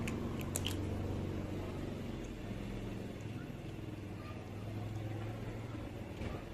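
Domestic cat purring steadily close to the microphone, a low continuous rumble, with a few small clicks about half a second in.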